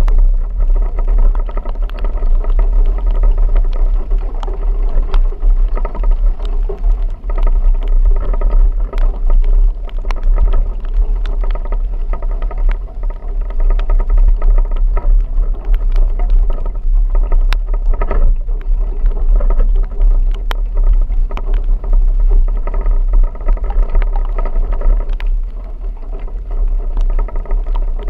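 A vehicle driving: a loud, steady low rumble with a constant droning running sound over it, peppered with scattered sharp ticks throughout.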